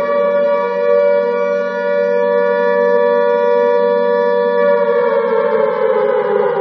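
Alarm siren sounding a long, steady wailing note that starts to glide down in pitch about five seconds in.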